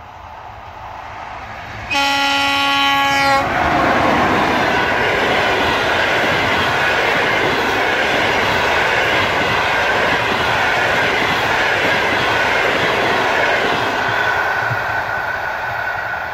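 ChS4t electric locomotive at the head of a passenger train, approaching at speed. About two seconds in it sounds its horn, one pitched blast of about a second and a half whose pitch drops as it passes. Then the coaches rush by with loud, steady wheel and rail clatter that begins to fade near the end.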